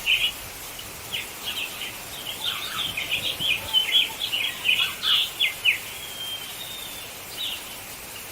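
Birds chirping in quick clusters of short notes, busiest for the first six seconds, then a few longer thin whistles near the end.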